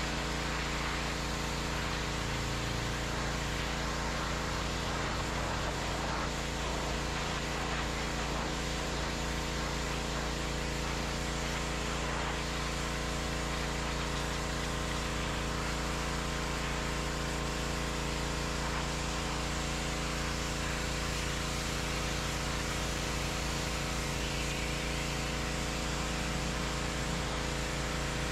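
Gas pressure washer with a 209cc engine running steadily under a constant hiss of high-pressure water spraying onto concrete.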